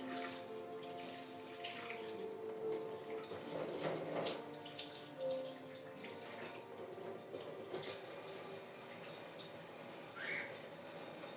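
Tap water running into a sink and splashing as portable fan parts are washed under it.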